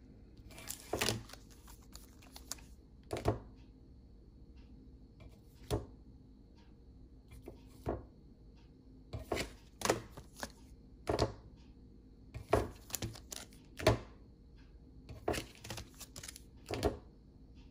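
Baseball-style trading cards being handled: about a dozen short, sharp clicks and snaps as cards are flicked through and set down, a second or two apart.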